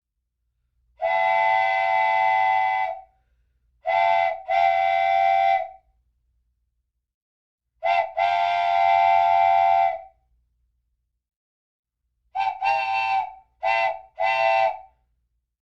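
Train whistle blowing a sequence of blasts: one long blast, then a short and a long, then a short and a long, then three short toots near the end. Each blast is a chord of several tones sounded together.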